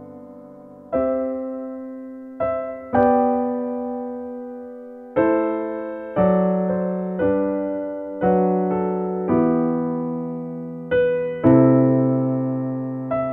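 Slow, gentle solo piano music: notes and chords struck about once a second, each left to ring and fade before the next.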